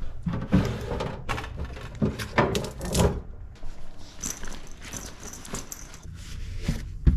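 A string of irregular knocks and clattering handling noises, several sharp ones in the first three seconds, then softer rustling with a faint high hiss.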